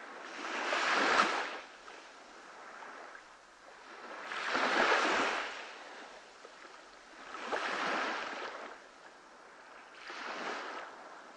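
Small waves washing onto a sandy beach: four swells of surf about three seconds apart, the first two the loudest and the later ones fainter.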